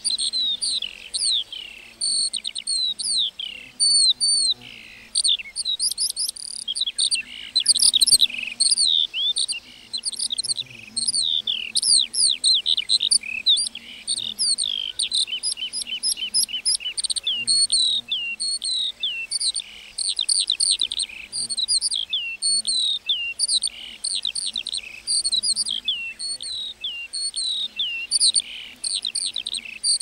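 A lark singing a long, continuous song of rapid whistled notes, most of them quick downward slurs, running on without a real pause.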